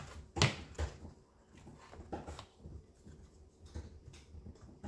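Hands handling a chainsaw's plastic rear handle housing: a sharp knock about half a second in, a second just before one second, then fainter scattered taps and rustles.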